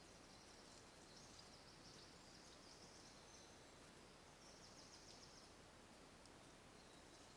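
Near silence: a trail camera's microphone hiss in a forest, with faint high-pitched trills twice, a couple of seconds in and again past the middle.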